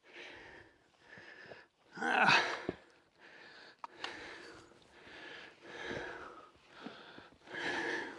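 A man breathing hard, panting in and out about once a second, with one louder breath about two seconds in: the exertion of scrambling up a steep crag under a heavy pack.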